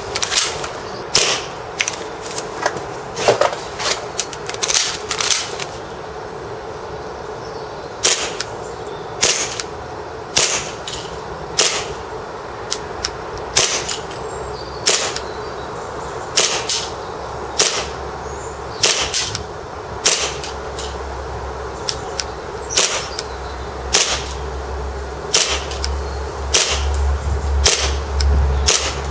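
Tokyo Marui 1911 Night Warrior gas blowback airsoft pistol firing a long string of single shots, each a sharp crack with the slide cycling. The shots come quickly for the first six seconds, then at about one every second and a half.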